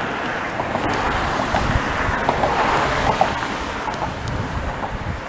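Wind buffeting an action camera's microphone, a steady rush with a fluttering low rumble, with a few faint ticks.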